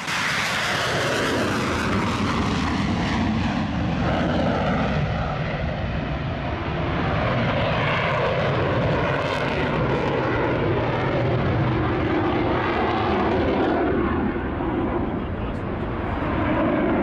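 Fighter jet taking off and climbing away at takeoff power: loud, steady jet noise with slowly sweeping tones as the aircraft moves away.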